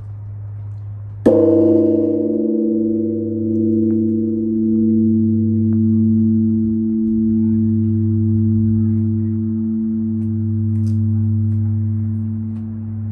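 Large Vietnamese pagoda bell struck once about a second in, then ringing on at length. A deep hum that slowly swells and fades runs underneath, and the higher tones die away first.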